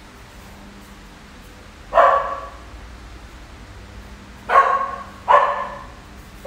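Border collie puppy barking three times: one short bark about two seconds in, then two close together near the end.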